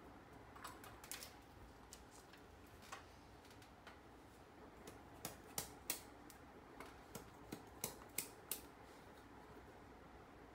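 Sharp clicks and taps of bamboo and a steel blade as bamboo strips are split and shaved by hand: a few scattered ones, then a quick run of about ten in the second half.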